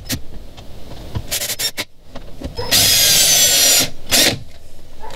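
RIDGID cordless drill/driver driving screws into a boat console panel, run in short spurts. There are a few quick spurts about a second in, then a longer run of about a second with a motor whine, and one more short spurt after it.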